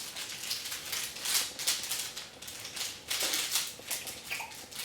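Irregular dry rustling and crackling in quick, uneven bursts.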